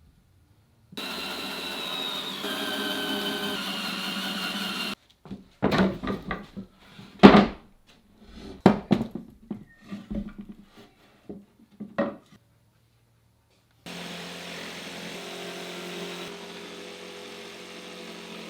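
A power tool runs steadily for about four seconds, its pitch dipping partway through. Then comes a string of irregular sharp wooden knocks and clatters, and then a power tool runs steadily again.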